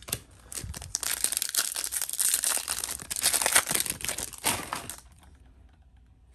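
Foil trading-card pack being torn open and its wrapper crinkled by hand, a dense crackling that starts about a second in and stops about five seconds in.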